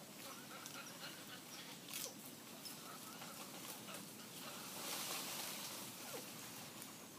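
Leafy garden greens rustling and stems snapping as arugula is picked by hand, with a few sharp clicks and a louder rustle about five seconds in.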